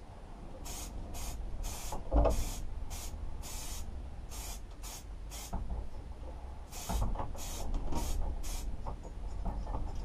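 Aerosol spray paint can hissing in about a dozen short bursts as an engine is sprayed, with a low thump about two seconds in and a few more around seven seconds.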